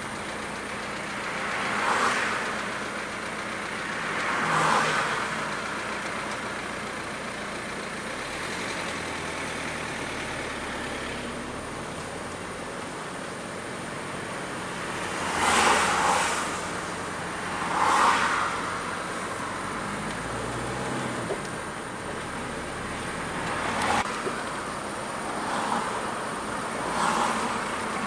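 Steady road and traffic noise with vehicles whooshing past one after another, each one swelling and fading over about a second, several times.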